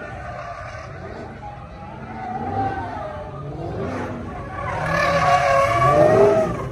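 A car's engine revving hard and wavering up and down as it spins donuts, with tyres skidding; it grows louder from about five seconds in as the car slides close by.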